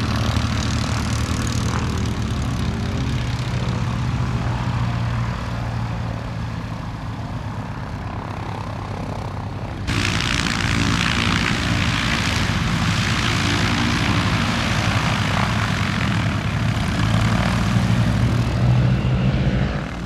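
Light-aircraft piston engines running at taxi with propellers turning. First comes the Piper L-4 Grasshopper's Continental A-65 flat-four. About halfway there is an abrupt switch to the louder Cessna Bird Dog, whose Continental O-470 six-cylinder engine rises further near the end as both aircraft taxi together.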